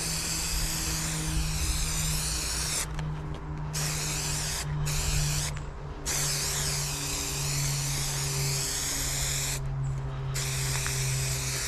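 Aerosol can of spray adhesive hissing as it sprays, held in long bursts with a few brief pauses, over a low steady hum.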